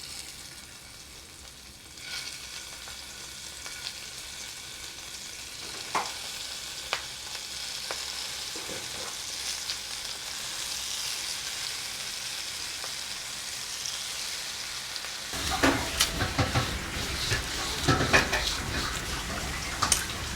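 Marinated dried fish sizzling in hot coconut oil in a frying pan; the sizzle starts about two seconds in as the pieces go into the oil and grows steadily, with a few sharp pops. From about fifteen seconds in come louder knocks and scraping of a utensil in the pan.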